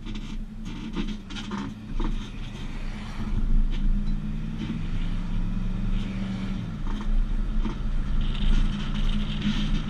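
Road and wind noise of a towed rig on the move behind a 2012 Chevrolet Silverado 1500, with the steady drone of the truck's 5.3-litre V8. Scattered clanks and rattles come from the hitch, and the engine note drops about two thirds of the way through.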